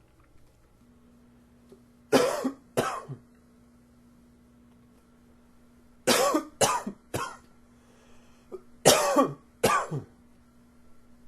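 A man coughing in three bouts: two coughs about two seconds in, three more a few seconds later, then two near the end.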